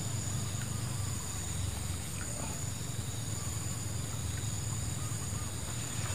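Steady outdoor ambience: a constant low rumble with a steady high-pitched whine above it and a few faint chirps.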